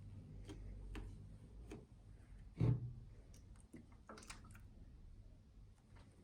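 Scattered clicks and light knocks of an object and its packaging being handled, with one louder knock about two and a half seconds in and a quick cluster of clicks a little later, over a low hum.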